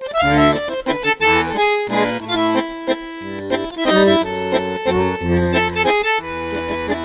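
A Meizu Flyme AiOS 11 stock phone tone playing: a quick, busy melody of short notes over a bass line, starting abruptly.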